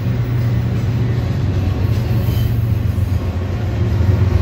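A CSX diesel locomotive working as a mid-train distributed power unit runs past at close range. Its engine makes a steady low drone over the rumble of the stack cars' wheels on the rails.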